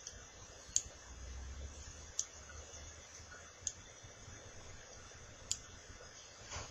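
Short, sharp clicks repeated about every one and a half seconds, six in all, over a faint hiss. They fit the fire button of a vaping mod being pressed in pulses to fire a freshly wrapped flat-kanthal coil on a rebuildable atomizer.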